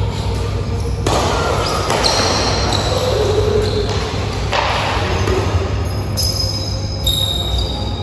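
Badminton rackets striking a shuttlecock in a rally: several sharp smacks a second or more apart, carrying in a large hall.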